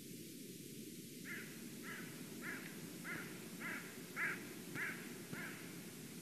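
White-tailed eagle calling: a series of eight evenly spaced call notes, a little under two a second, loudest about four seconds in.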